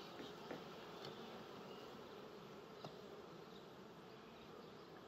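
Honeybees humming faintly and steadily around an opened wooden beehive, with a couple of faint taps.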